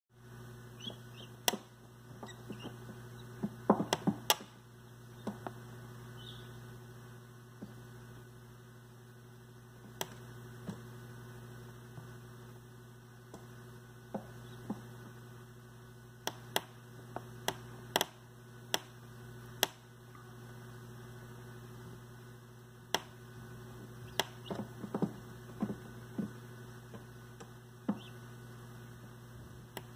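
Steady hum of an egg incubator, with irregular sharp taps and clicks from guinea keets hatching among the eggs, some of them in quick clusters.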